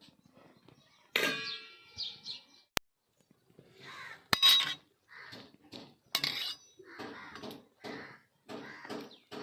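A metal utensil clangs with a short ringing tone about a second in, followed by a couple of sharp clicks. From about four seconds a run of short harsh animal calls comes roughly twice a second.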